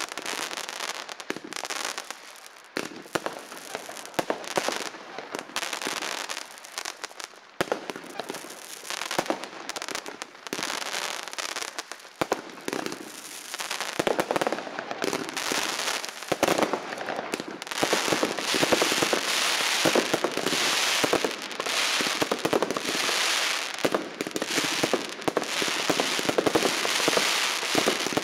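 Consumer fireworks going off overhead: aerial bursts of glittering stars that crackle as a dense stream of rapid small pops. The crackling grows denser and louder about two-thirds of the way through as more bursts overlap.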